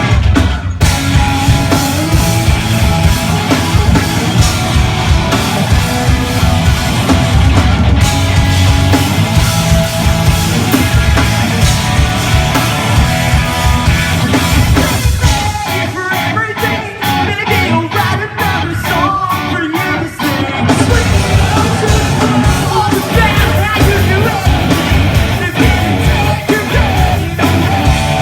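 Live rock band playing loudly, with shouted singing over guitars, bass and drums. A little past the middle the low end drops away for a few seconds, then the full band comes back in.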